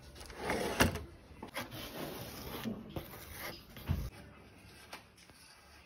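Hand tools clicking and knocking in a tool tray, with a sharp click about a second in and a low thump near the end. A small hand tool then rubs and scratches along a leather strap.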